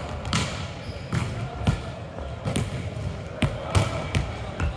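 Volleyballs being struck and bouncing on a hardwood court, a run of sharp irregular smacks and thuds that echo in a large hall.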